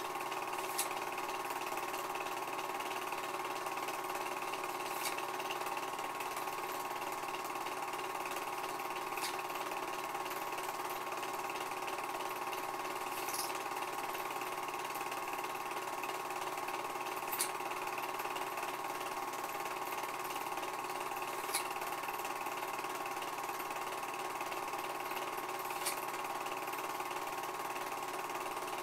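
Home-movie film projector running steadily, its motor and mechanism giving an even whirring hum with a faint tick about every four seconds.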